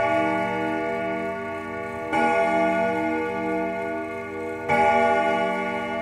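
A church bell tolling slowly, struck twice, about two seconds in and again near five seconds. Each strike rings on in a long, wavering hum, and the ring of the previous strike carries into the start.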